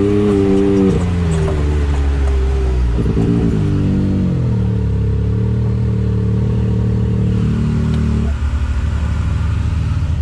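Can-Am Maverick X3 Max side-by-side's turbocharged engine driving through sand, its revs rising and falling twice, then holding steady before dropping back near the end.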